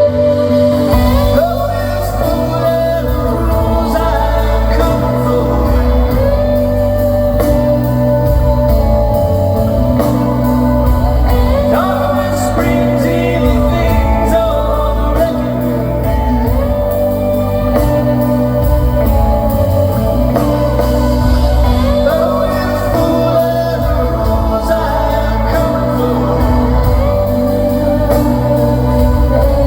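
A rock band playing live, with a lead singer over a steady bass and drum beat.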